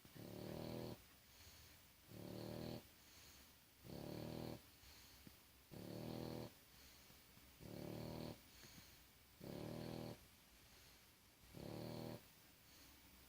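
Regular snoring: seven snores in a steady rhythm, one about every two seconds, each a rough pitched rattle of under a second with quiet breathing in between.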